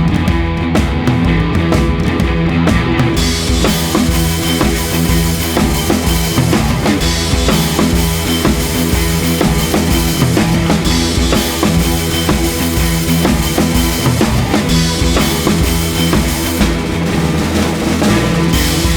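Rock music with drum kit and guitar, a steady driving beat; the cymbals come in about three seconds in.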